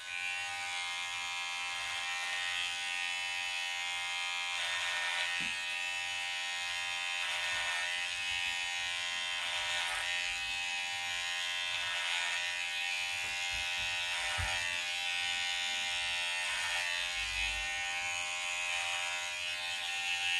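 Electric hair clippers running with a steady buzz while cutting short hair, the tone shifting slightly every few seconds as the blade is worked through the hair.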